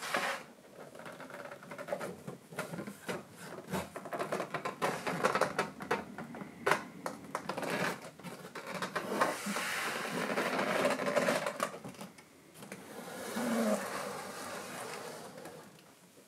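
Cardboard box and plastic packaging being handled and opened: rustling with many scattered clicks and taps.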